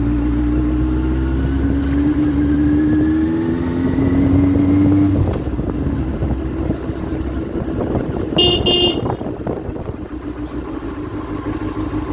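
Benelli TNT 600i's 600 cc inline-four engine pulling away, its pitch rising for about five seconds before it drops and settles into a rougher, uneven running. A short vehicle horn toots about eight and a half seconds in.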